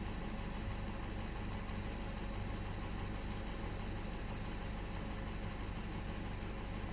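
BMW 116i F20 engine idling steadily.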